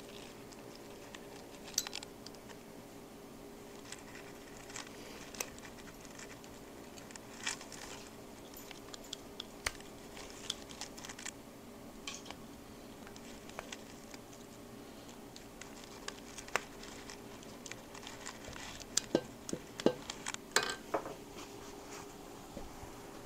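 Faint, scattered metal clicks and scrapes of small hand tools working the wrist-pin circlips into a Honda CB350F's pistons, over a steady low hum. The clicks come thicker and louder near the end.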